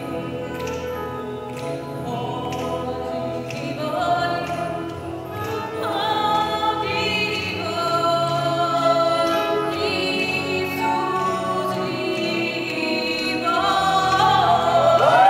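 Gospel choir singing in harmony, holding long chords that change every second or two and grow louder toward the end.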